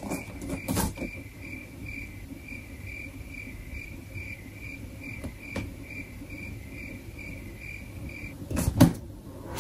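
Soft knocks and handling of a cardboard laptop box as its lid is eased off, a few times. Under them runs a high chirping, about two pulses a second, which stops near the end.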